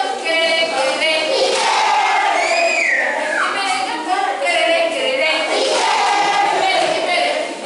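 A group of young children singing and chanting together in a circle game, with one high voice sliding down in pitch about two and a half seconds in.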